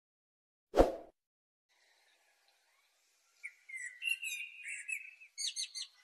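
A single short thump about a second in, then a male common blackbird singing from about three seconds in: a warbled phrase that ends in a run of quick, high notes.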